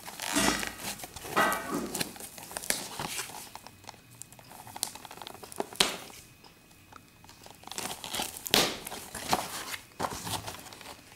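Packaging crinkling and rustling in irregular handling noises as a puzzle cube is unwrapped and taken out of its package, with a quieter lull about six seconds in.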